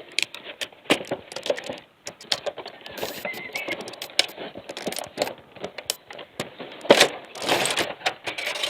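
Heated-grip kit's packaging being handled: a cardboard box opened and plastic packaging rustled and crinkled by hand, a dense run of irregular crackles and clicks, loudest about seven seconds in.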